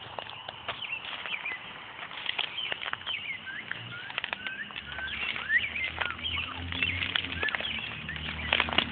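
Small birds chirping and calling, many short chirps sliding up and down in pitch, with a low rumble coming in about halfway through.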